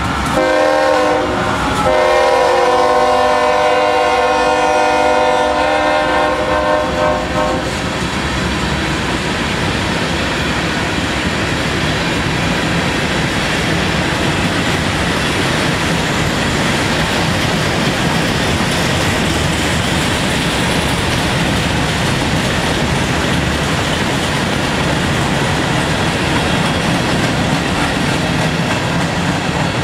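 A freight train rolling past: steady wheel-and-rail rumble with clickety-clack from covered hopper cars and boxcars. A locomotive air horn blows a long chord over it for the first eight seconds or so, then stops.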